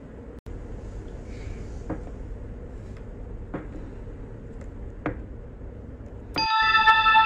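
A low steady hum with a few faint taps, then about six and a half seconds in a bright electronic chime sound effect starts ringing.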